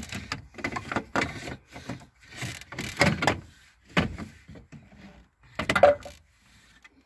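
Irregular rubbing and knocking as a gloved arm works an oil filter down through a cramped engine bay, the filter and sleeve scraping and bumping against hoses and plastic parts. The loudest bumps come about three seconds in and near the end.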